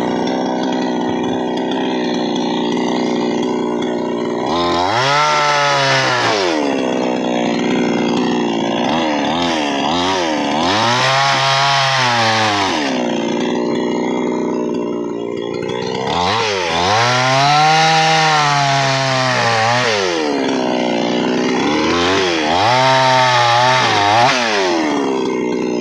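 Chainsaw engine running at high revs and cutting wood. Its pitch sags and recovers about four times as the chain bogs down under load in the cut and then frees up.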